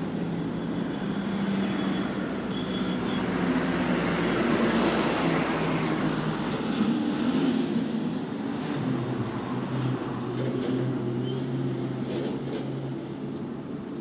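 Highway traffic passing close by, trucks among it: engine and tyre noise swells to a peak about halfway through and then eases, with a lower engine note carrying on in the second half.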